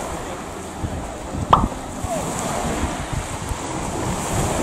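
Seaside ambience: waves washing in and wind buffeting the microphone, with faint distant voices and a single sharp knock about a second and a half in.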